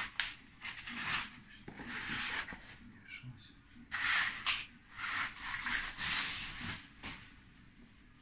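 Bubble wrap and plastic packing rustling and crinkling in irregular bursts as they are pulled off and handled.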